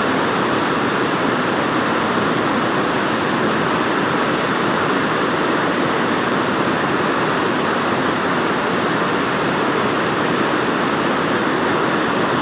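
Water pouring over a spillway, a loud, steady rush with no change in level.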